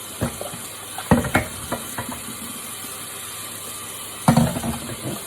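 Cleaning and handling noises: a few short knocks and scrapes, about a second in and again near the end, over a steady faint hiss.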